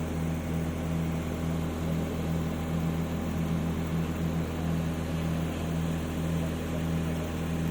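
Steady low machine drone with a regular pulsing hum, running on with no change.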